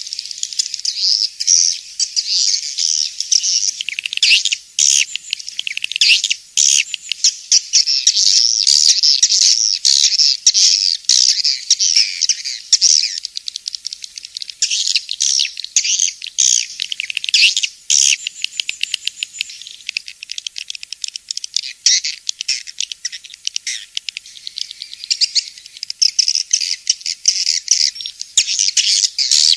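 Edible-nest swiftlet calls played as a swiftlet-house lure track: dense, unbroken high-pitched chirping and twittering, with nothing in the low range.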